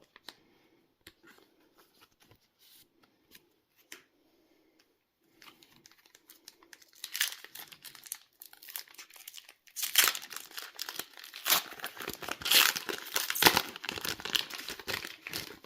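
Foil wrapper of a Pokémon booster pack crinkling and tearing open, a dense crackle that starts about seven seconds in and runs on, after a few soft clicks of card handling in a near-silent first half.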